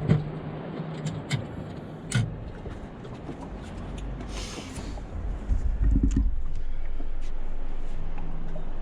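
Low rumble of wind on the microphone and a boat's motor hum on open water, with a few sharp knocks and a brief hiss; the sound cuts off abruptly near the end.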